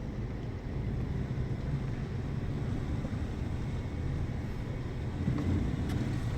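Ford Ranger pickup driving through snow, its engine and tyres making a steady low noise.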